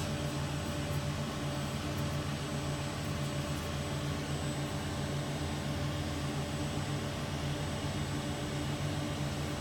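Multi-function automatic lathe for small-diameter precision parts running with a steady hum and a few faint clicks.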